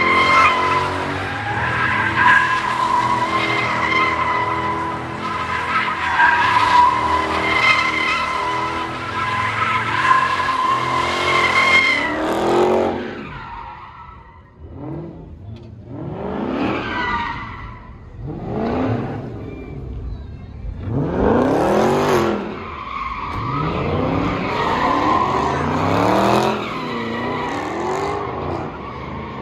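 A car doing burnout donuts. The tyres squeal steadily for about the first twelve seconds. Then the engine revs up and down again and again. The tyre squeal comes back near the end.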